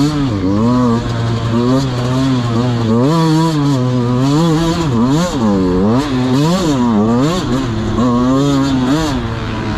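Dirt bike engine being ridden hard, revving up and down over and over, its pitch rising and falling about once a second with a few quicker swings midway.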